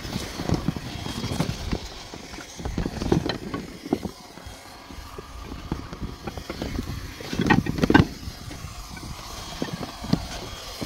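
Irregular rustling, scraping and knocking as a rope ladder with wooden rungs is handled and dragged across a plastic geomembrane pond liner, with the loudest knocks about eight seconds in.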